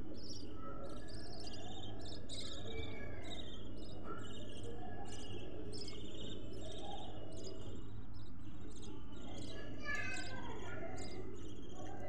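Budgerigars chirping continuously in short, high-pitched chirps, one after another, over a steady low hum.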